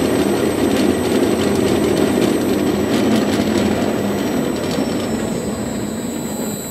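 Stephan UMSK 24 cutter-mixer running, its motor and blades churning surimi fish paste in the steel bowl. The sound is a loud, steady mechanical churn that fades away near the end as the machine runs down.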